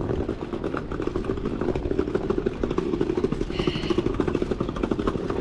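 A vehicle engine running steadily with a rapid pulsing, and a short high tone about three and a half seconds in.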